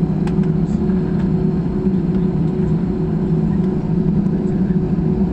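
Steady cabin drone of an Airbus A320-family jet airliner taxiing after landing, heard from inside the cabin: a low rumble of the jet engines and airframe with a steady hum above it.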